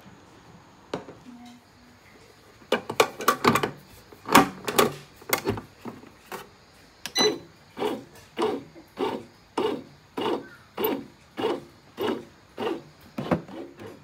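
Bread machine kneading dough: its paddle turns the flour and water in the non-stick pan, starting about three seconds in with an irregular run of knocks that settles into a steady rhythm of about two knocks a second.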